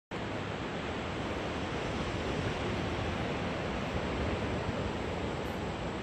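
Steady rushing noise of wind and ocean surf on a beach, even throughout with no distinct events.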